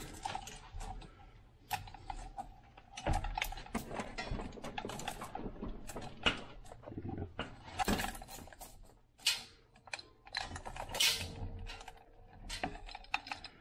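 Manual chain hoist being pulled: steel chain links clinking and rattling, a quick uneven run of clicks and knocks.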